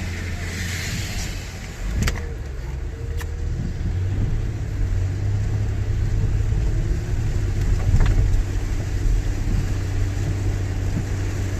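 A car's engine and road noise heard from inside the cabin while driving in the rain, a steady low hum, with a few sharp clicks about two, three and eight seconds in.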